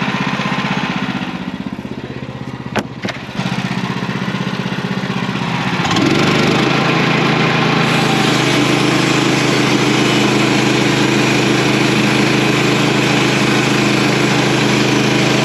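Sawmill's engine running steadily, with two short knocks around three seconds in. From about six seconds in it runs louder and stronger, as the saw goes into the log.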